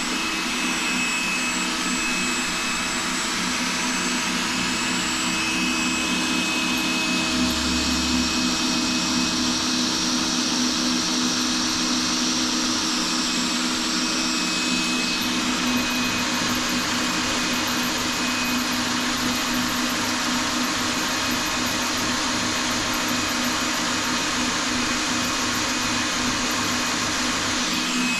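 Small power drill running steadily with a constant whine, boring a hole through wall tile with a hole saw.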